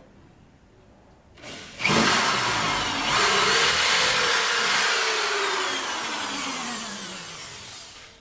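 Corded electric drill with a long bit drilling a hole. It starts about two seconds in, and its pitch rises briefly and then slowly drops as the sound fades near the end.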